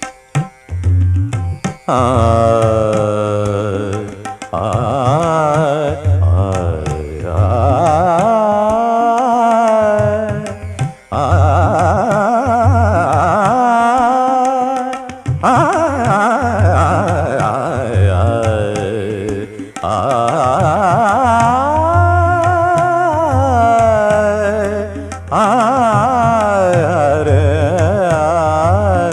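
Carnatic classical singing: a wordless vocal alap with heavily ornamented, sliding and oscillating pitch. It comes in phrases of a few seconds each over a steady low drone, with light percussion.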